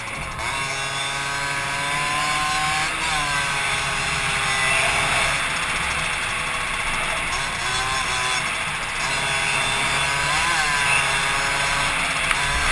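Suzuki PV moped's 60cc two-stroke single-cylinder engine running at speed. Its pitch dips and climbs back about three times as the throttle eases and opens.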